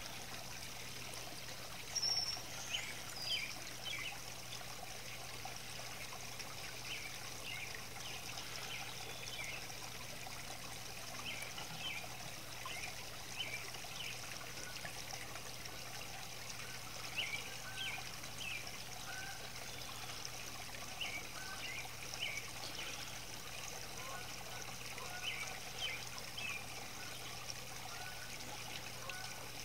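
Water trickling steadily in small garden fountains, such as a rock waterfall feature, with irregular small splashes and plinks.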